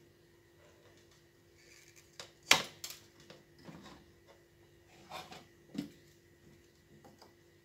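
Handling sounds from working on a TV power-supply circuit board with soldering tools: one sharp click about two and a half seconds in, the loudest, then a few softer knocks and rubs, over a faint steady hum.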